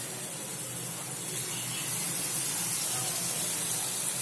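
Batter-coated chicken wing pieces deep-frying in hot oil, a steady sizzling hiss.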